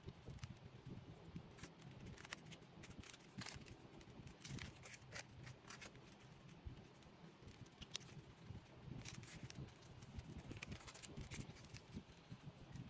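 Glossy photocards being thumbed through by hand: faint, irregular clicks and flicks of card edges against one another, over a low steady hum.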